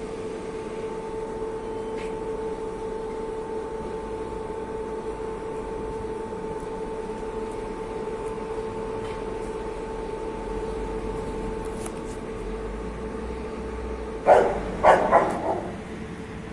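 A steady mechanical hum, and near the end a dog barking four times in quick succession.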